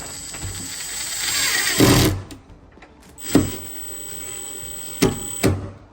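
Cordless power screwdriver driving a small screw into the smart lock's mounting, in two runs. The motor's high whine builds and ends with a knock about two seconds in, then runs again with a couple of sharp clicks near the end.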